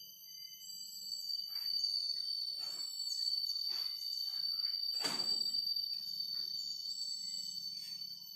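Background music of steady, sustained high electronic tones. Over it come several short soft swishes about a second apart, the loudest about five seconds in.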